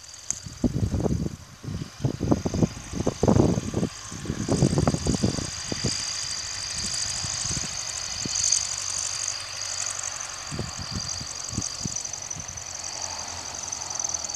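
Belarus MTZ-82 tractor's diesel engine running steadily under load while cultivating, heard from across the field. Low buffeting noise on the microphone comes and goes over the first six seconds.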